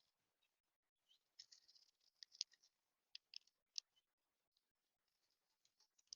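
Small birds at a seed feeder: faint, short, high chirps and clicks, bunched together between about one and four seconds in, then sparse.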